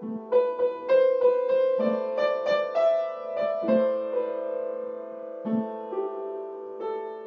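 Solo piano improvisation. A quick string of notes rings out over sustained low notes, then it settles into slower, held chords with fresh attacks every second or two.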